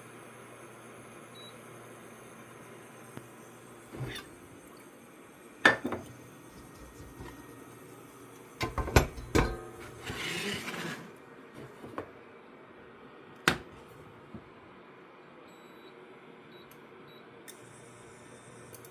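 Knocks and clinks of cookware being handled on a hybrid gas-induction cooktop: a few separate sharp knocks, a quick cluster of clicks about nine seconds in followed by a short hiss, then two more knocks.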